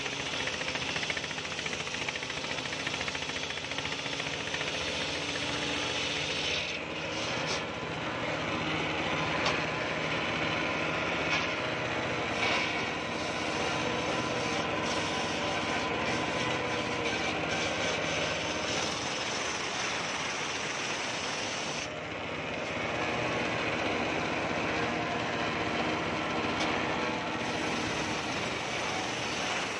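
Homemade table circular saw running steadily and ripping a coconut-wood beam lengthwise, the blade whining through the cut. The sound dips briefly about seven seconds in and again about twenty-two seconds in, then carries on as before.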